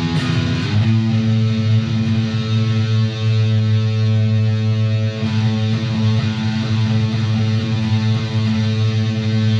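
A Harley Benton Fusion II electric guitar with both humbuckers on, played through the distorted yellow channel of a Mesa/Boogie JP-2C into a 4x12 cabinet of V30 speakers. It moves to a low distorted chord about a second in and holds it, ringing out steadily.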